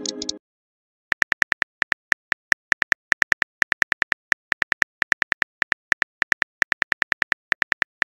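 Rapid phone-keyboard typing clicks, about five or six sharp clicks a second, starting about a second in, as a message is typed out on a smartphone chat screen. Just before them, a short message-received chime fades out.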